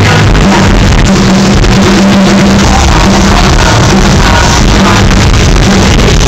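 Rock band playing live at full volume, with electric guitars, heard from among the audience in the hall.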